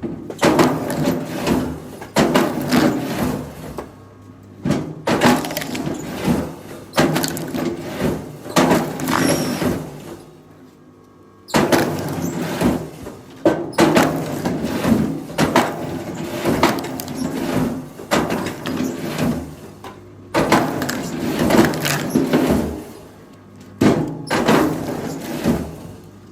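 Wooden logs knocking and clattering against one another as they are handled, in irregular bursts of knocks with short pauses between them.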